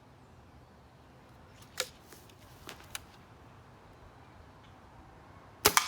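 A .22 Stoeger ATAC air rifle fires a pellet near the end with one loud, sharp crack, the last of an eight-shot string. About two seconds in come a few fainter clicks and knocks from handling the rifle.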